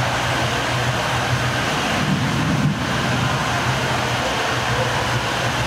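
Steady rushing background noise with a constant low hum underneath.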